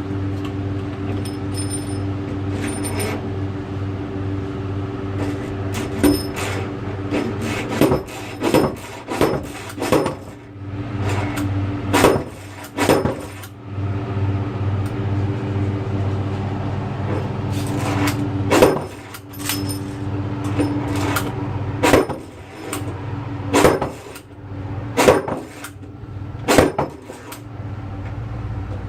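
Slide hammer striking repeatedly, about a dozen irregular metallic clanks with a ringing tail, as it pulls on a lug welded to a washing machine drum bearing to knock the bearing out. A steady low electrical hum runs underneath.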